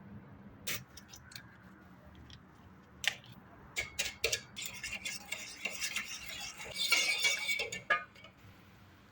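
Metal utensil clinking and scraping against a dish: a few separate clicks, then a few seconds of rapid clinking like stirring or whisking in a bowl, which stops shortly before the end.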